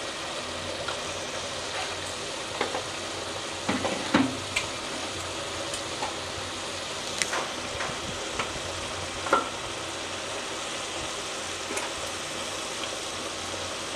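Onion-tomato masala with freshly added spice powders frying in oil in a pressure-cooker pot: a steady sizzle broken by scattered sharp pops and spatters.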